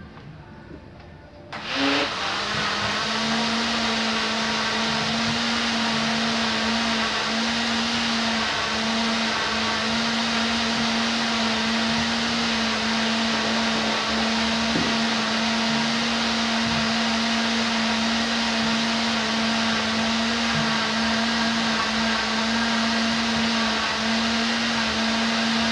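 Electric kitchen blender switched on about a second and a half in. It comes up to speed quickly, then runs steadily at high speed, mixing a full jar of cornmeal cake batter.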